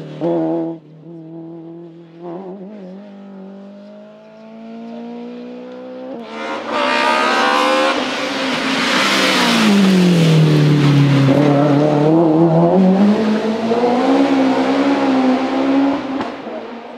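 BMW E30 M3 hillclimb race car's engine at racing revs, its note climbing steadily while the car is still distant. About six seconds in, the car comes close and gets loud, and its engine note drops and then climbs again as it accelerates on.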